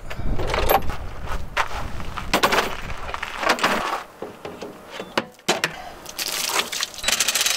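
Irregular knocks, clinks and clatter of hands working on a bus's plastic coolant reservoir and its hoses.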